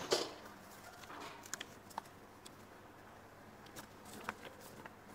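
Loose sheets of paper being handled and turned: a rustle right at the start, then a few faint crinkles and taps.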